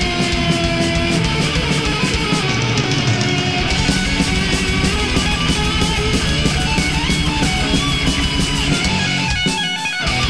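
Instrumental passage of a heavy metal song: distorted electric guitars over a fast, steady drum beat. The bass and drums drop out briefly near the end.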